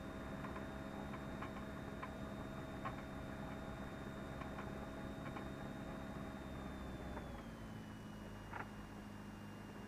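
Cessna 172's engine running faintly at taxi power, heard in the cockpit as a steady hum with a few light clicks; about seven seconds in, its pitch steps down and it gets a little quieter.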